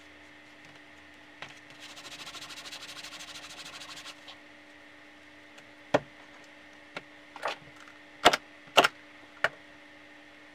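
Fast back-and-forth rubbing of a cloth over leather for about two seconds, then a series of sharp knocks, the loudest a pair about two-thirds of the way through: a mallet striking a logo stamp into small leather pieces.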